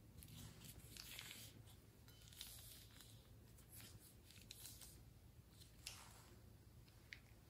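Faint crinkling of a soft plastic piping bag as it is squeezed and blue slime runs out of it, heard as scattered soft crackles and rustles.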